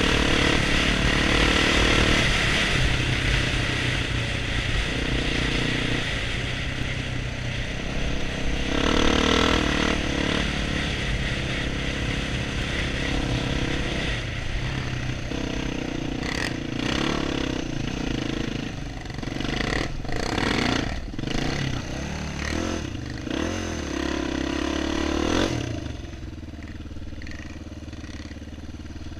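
Honda XR400's air-cooled single-cylinder four-stroke engine running under way, its note rising and falling as the throttle is worked and gears change. Partway through comes a run of clattering knocks as the bike rides over rough ground, and near the end the engine drops to a lower, quieter note as the rider eases off.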